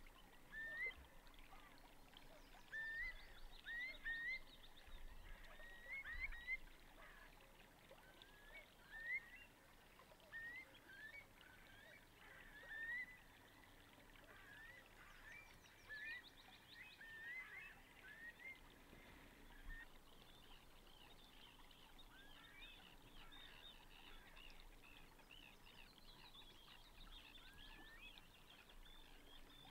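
Faint bird calls: a string of short rising chirps, about one or two a second, through the first twenty seconds, then fainter, higher-pitched calls toward the end.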